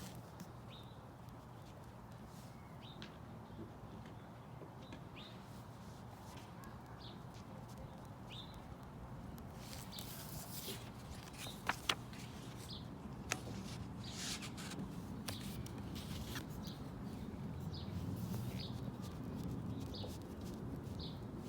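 Small birds chirping: short single chirps repeated every second or two over a low steady background. A few sharp clicks and brief scratchy noises come about halfway through.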